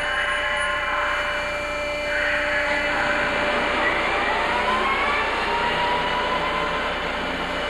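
Industrial machinery running with a steady whir, a tone gliding up in pitch a few seconds in.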